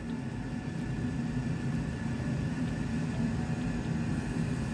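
Dreo ChefMaker combi air fryer running while it cooks: a steady whirring hum from its fans with a low drone underneath, not very loud.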